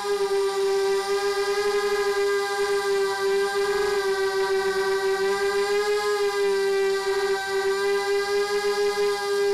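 ZMR1804 brushless motors spinning 5x3 carbon props on a small FPV quadcopter, giving a steady high whine whose pitch wavers slightly with throttle, heard close up from the craft's onboard camera.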